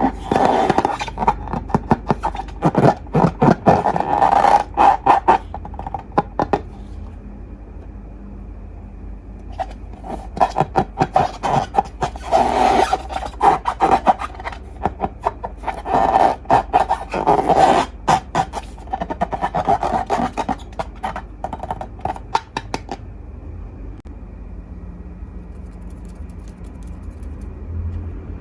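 Slime being worked by hand or stirred: dense runs of sticky crackling and scraping in several long stretches, with quieter pauses between.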